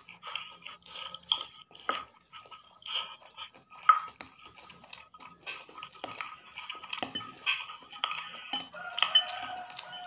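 Metal fork and spoon clinking and scraping against a ceramic soup bowl while eating, in irregular sharp clinks, a few of them louder than the rest.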